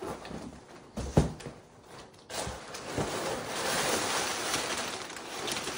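A knock of a large cardboard box being handled about a second in, then steady crinkling and rustling of brown packing paper and a plastic bag as the part is dug out of the box.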